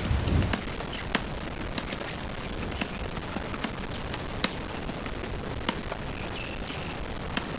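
Computer keyboard being typed on quickly in a timed typing test, at about 54 words per minute: an irregular patter of key clicks, some louder than others, over a steady background hiss.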